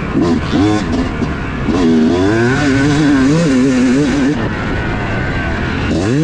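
Yamaha YZ250 two-stroke motocross engine being ridden on and off the throttle, its pitch rising and falling. It revs sharply upward near the end as the bike accelerates.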